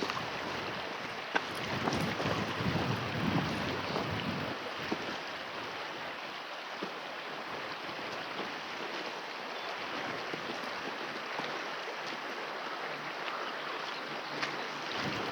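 Strong wind blowing as a steady rushing noise, with gusts buffeting the microphone in low rumbles about two to four seconds in.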